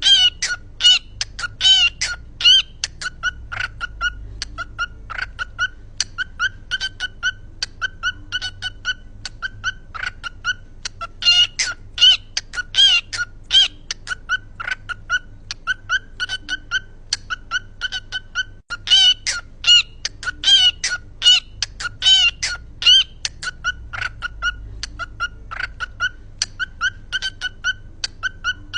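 A bird calling in a long run of short, clipped calls, several a second, with louder, busier flurries about eleven seconds in and again about nineteen seconds in.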